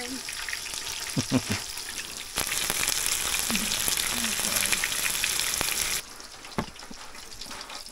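Breaded northern pike pieces frying in hot oil in a skillet: a steady crackling sizzle that swells loud for a few seconds in the middle, then drops back, with a few light knocks.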